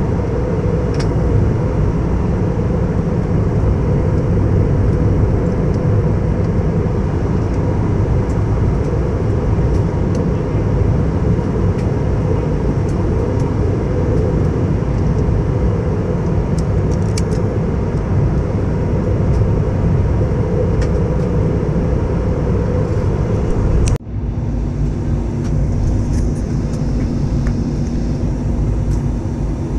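Steady cabin noise of an Airbus A320 in flight: a deep rush of airflow and engine rumble heard inside the cabin. About 24 seconds in it cuts off abruptly and resumes at once with a slightly different tone and a low steady hum.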